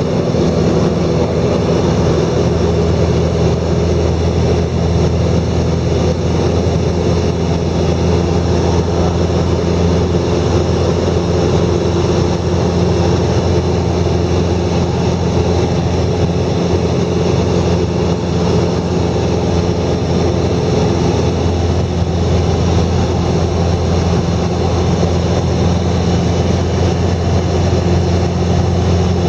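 A heavy engine running steadily at a constant speed, with an even, unchanging hum.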